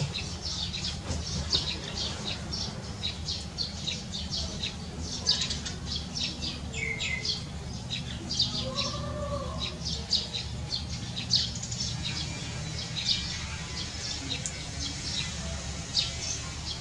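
Small birds chirping over and over, short high notes in quick succession, over a steady low hum.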